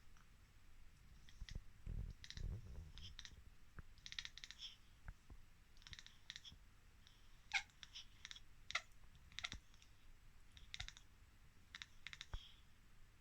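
Domestic cat chattering: short runs of quick, faint clicks, repeated in bursts every second or so, the excited clicking cats make. A couple of dull low thumps come about two seconds in.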